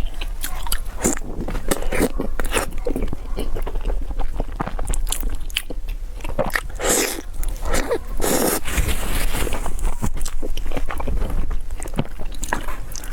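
Close-up eating sounds: a person biting and chewing crunchy food, with many irregular crisp crunches.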